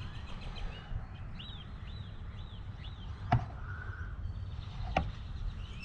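Birds chirping, including a run of four quick repeated chirps, over a low rumble of wind on the microphone, with two sharp clicks about a second and a half apart.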